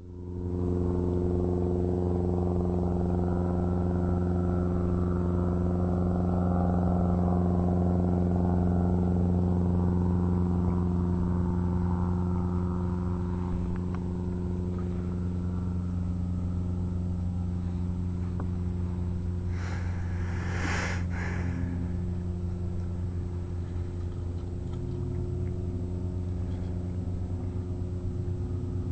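An engine running at a steady speed, a constant low drone. About twenty seconds in there is a brief rushing noise.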